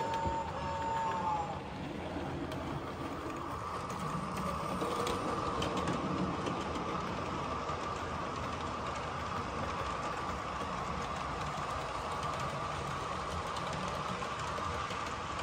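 00 gauge model trains running on the layout: a steady rolling whir of wheels on track and motors as a model steam locomotive hauls a rake of coaches past. A held high tone sounds at the start and cuts off about a second and a half in.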